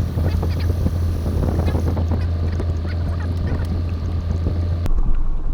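Motorboat engine running steadily with a low hum, with crackling water and wind noise over it; the hum stops abruptly near the end.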